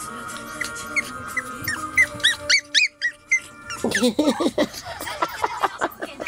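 Pomeranian puppy yipping in a run of short, high-pitched calls, then, after a brief pause about halfway, quicker, lower yaps, with background music.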